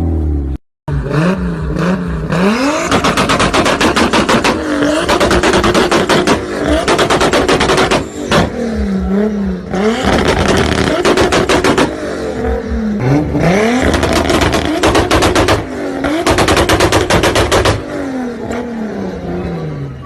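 Tuned car engines revving up and down repeatedly, with rapid exhaust pops and crackles (backfires) as the revs drop. There is a short break about a second in, where one clip cuts to the next.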